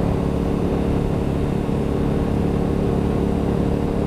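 Motorcycle engine running at a steady cruising speed with wind rumble on the microphone; the engine note holds even, with no revving or gear changes.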